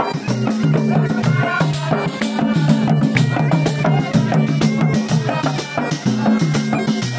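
Traditional folk music from a drum troupe: double-headed barrel drums beaten in a quick, steady rhythm under a reedy wind instrument playing a melody.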